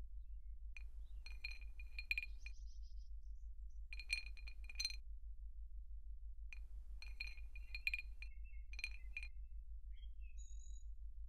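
Bright, glassy clinks and chimes in four short clusters, with ringing tones, over a steady low hum.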